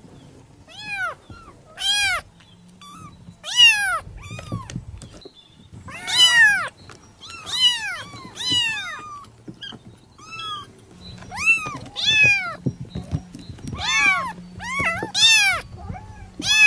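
Kittens mewing over and over, short high-pitched meows that each rise and fall in pitch, coming about once a second with brief pauses.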